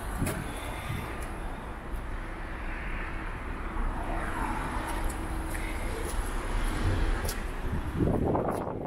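Outdoor background noise: a steady low rumble of vehicle traffic, with a faint steady hum in the middle and a louder low rush near the end.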